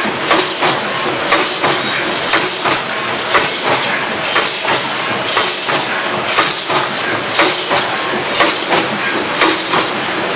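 Automatic melon seed packing machine running, a steady mechanical clatter with a loud hissing burst about once a second in a regular cycle.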